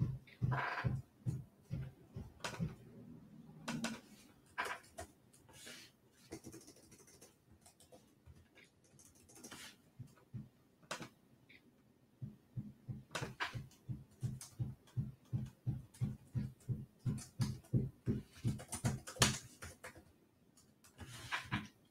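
A dog panting rapidly, about four breaths a second. The panting fades for several seconds in the middle and then picks up again, with scattered sharp clicks.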